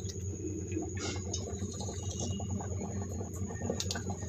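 Steady low background hum with a few faint clicks of a knife blade on the stone counter as it cuts through rolled dough.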